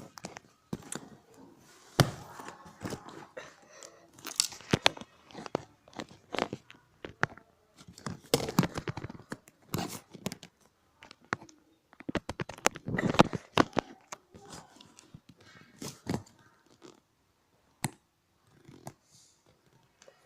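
Lego bricks being handled close up: irregular sharp plastic clicks with bursts of rustling and crinkling, the loudest clicks about two seconds in and around the twelve-to-thirteen-second mark.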